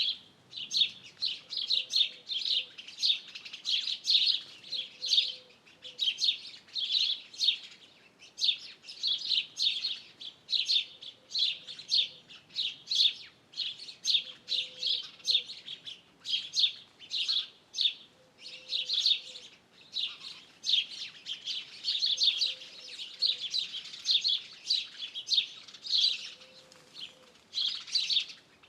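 Songbirds chirping in a busy run of quick, high notes. A faint low call repeats every few seconds underneath.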